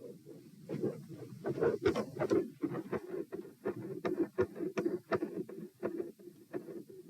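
Heart sounds picked up by a microphone on the chest: a quick run of soft beats and clicks, several a second. Their loudness rises and falls over a few seconds, the respiratory phasic pattern in the beats that the recorder finds unusual.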